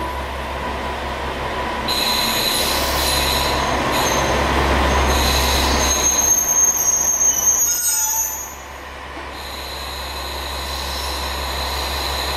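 KiHa 47 diesel railcar idling at a station platform: a steady low engine rumble with high squealing tones over it. The squealing is loudest in the middle and stops about eight seconds in, after which a single high whine builds back up.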